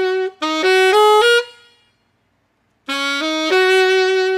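Saxophone playing a short rising lick, B♭–C–E♭ then C–E♭–F–G, in clean, separate notes. The phrase ends about one and a half seconds in, a pause follows, and it starts again from the beginning near the end.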